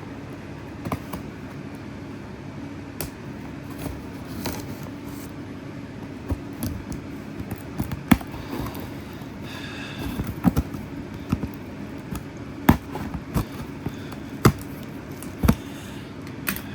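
Scattered knocks and clicks of loudspeakers and parts being handled and packed into a box, over a steady low hum. A few sharper knocks stand out in the second half.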